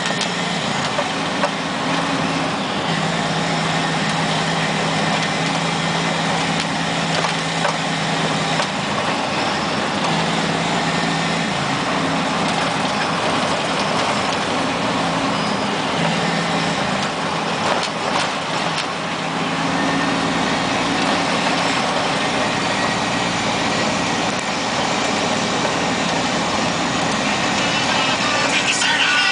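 Vehicle engine and tyres on a gravel road, heard from inside the cab: a steady engine drone over rumbling road noise, the engine note dropping out and returning a few times as the speed changes.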